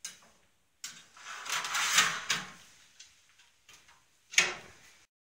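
A metal baking tray sliding into an electric oven with a scraping rattle, then the oven door shut with a sharp bang about four seconds in.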